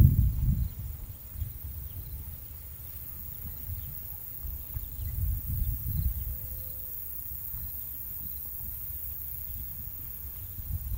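Insects chirping steadily in a field, under irregular low rumbles that are loudest in the first second and swell again around five to six seconds in.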